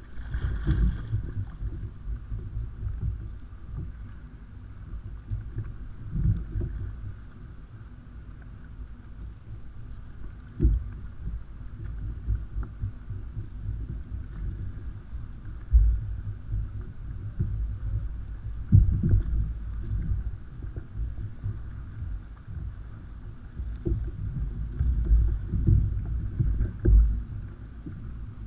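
Muffled low rumble with irregular thumps from wind and water buffeting a kayak on the ocean, heard on a small action-camera microphone.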